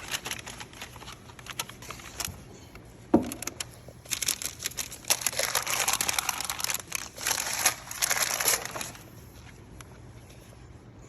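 Packaging being handled, crinkling and rustling, with a sharp knock about three seconds in. The crinkling is densest from about four to nine seconds in.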